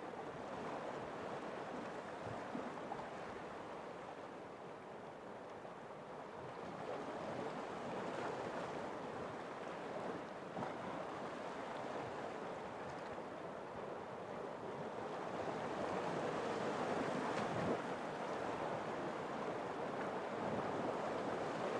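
Sea surf washing against a rocky shore: a steady rush of water that swells louder in the last third.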